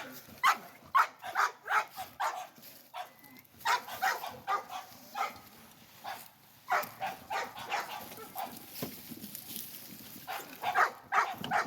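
Dog barking repeatedly in short bouts of several barks each, with pauses between the bouts.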